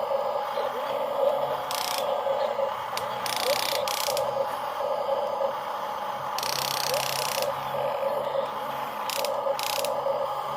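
Small electric gear motors of a radio-controlled excavator or dump truck whirring steadily with a pulsing whine, with several short hissing or scraping noises spread through it.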